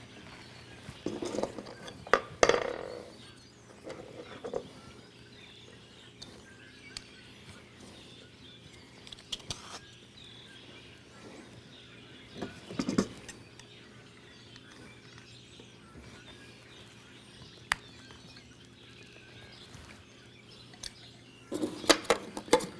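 Scattered knocks and clinks over a faint, steady low hum, with louder clusters of knocking about two seconds in, around the middle and near the end.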